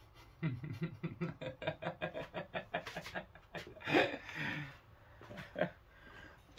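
A man laughing: a long run of quick chuckles for about three seconds, then a louder breathy laugh about four seconds in.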